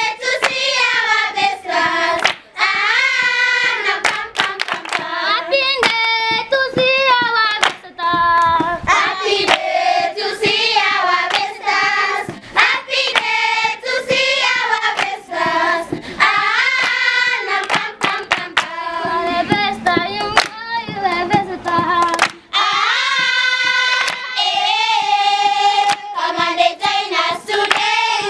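A group of primary schoolchildren singing a song together, with hand claps throughout.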